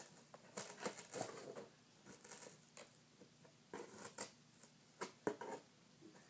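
Plastic packaging crinkling and rustling in irregular bursts as it is handled and pulled at.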